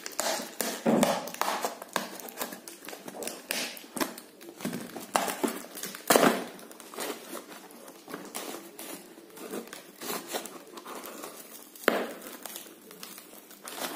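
Plastic courier bag crinkling and crackling under the hands as it is pulled and torn at its tightly taped seal, in irregular rustles with sharper crackles about a second in, about six seconds in and near the end.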